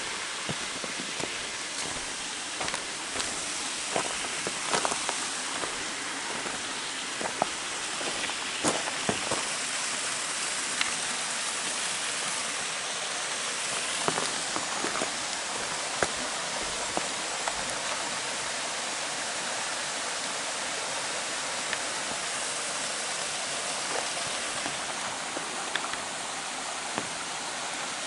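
Rain falling on an umbrella: a steady hiss with many scattered sharp drop hits.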